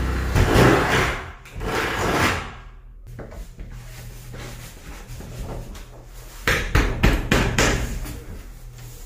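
Hands working a cable and a fitting against wall cladding: rustling and rubbing for the first couple of seconds, then small ticks, and a quick run of sharp clicks and knocks about six and a half seconds in.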